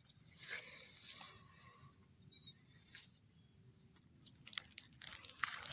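Steady high-pitched chirring of insects, likely crickets, with a few faint clicks near the end.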